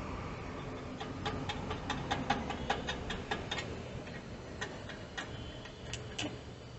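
Quick light clicks, about four a second for a couple of seconds and then a few scattered ones: a stick-welding electrode tapped against the steel motorcycle muffler to strike an arc.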